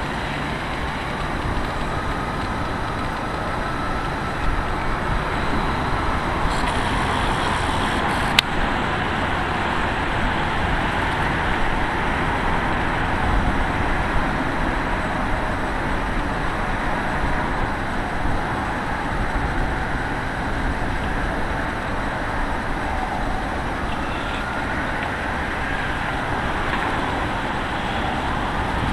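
Distant sirens of a responding fire engine and ambulance wailing in slow rises and falls over steady road traffic noise, with one sharp click about eight seconds in.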